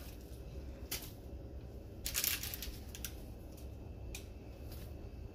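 Pieces of mackerel being laid onto jollof rice in a pot: a few short, rustling handling sounds, the longest just after two seconds in, over a low steady hum.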